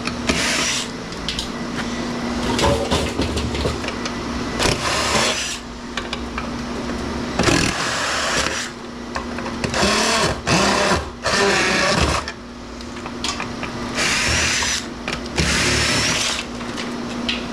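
Power drill/driver running in repeated short bursts, about half a second to a second each, while a metal light fixture is taken apart.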